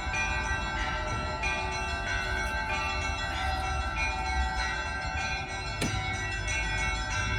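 Russian Orthodox church bells ringing: many bells of different pitches struck in quick succession, their tones overlapping and sustaining.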